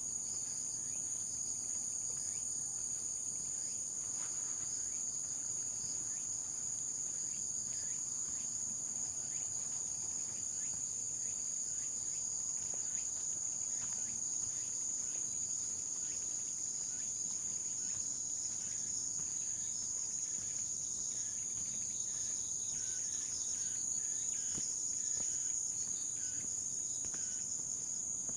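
A steady, shrill chorus of insects, many calling at once in several high bands without a break.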